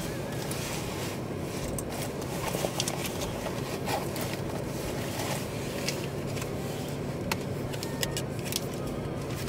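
Gas station fuel pump at work: a steady low hum with scattered small clicks and scrapes from handling the nozzle and fuel filler.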